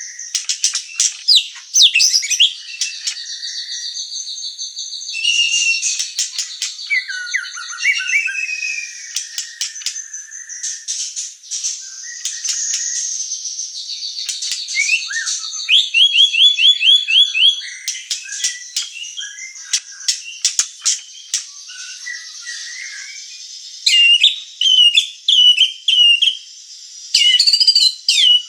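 White-rumped shama singing a long, varied song: clear whistled phrases, rapid runs of repeated notes, held buzzy notes and sharp clicks, with loud bursts of quick notes in the second half.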